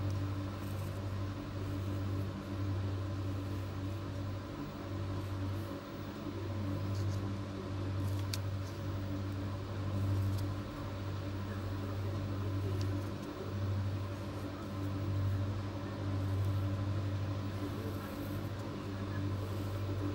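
A steady low hum, like a running motor or mains appliance, swelling and dipping every second or two, with a faint click about eight seconds in.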